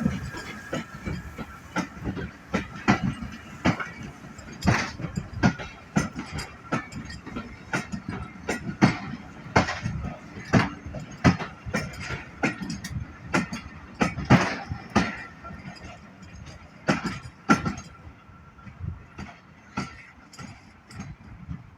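Steam train hauled by a Jinty 0-6-0 tank engine on the move, with a run of irregular knocks and clicks, one or two a second, over a steady rumble that eases near the end.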